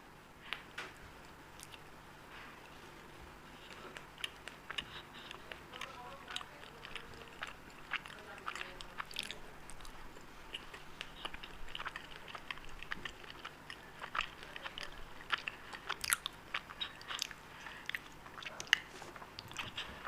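A person eating Indian sweets close to the microphone: irregular chewing and biting with many small mouth clicks.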